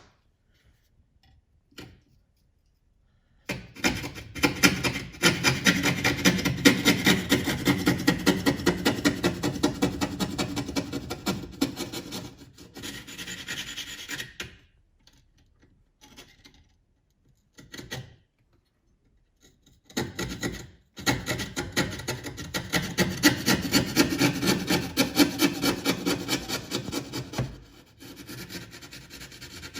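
Coping saw cutting through the latch housing's trim in two long bouts of quick, even back-and-forth strokes, with short pauses between them.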